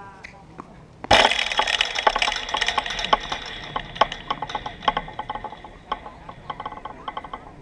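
A tennis ball strikes the chain-link fence right by the camera about a second in, with a loud crack, and the fence rattles and rings, dying away over several seconds.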